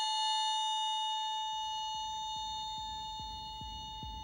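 Soundtrack music: a sustained, bell-like chord slowly fading, with a low pulsing beat coming in about a second in.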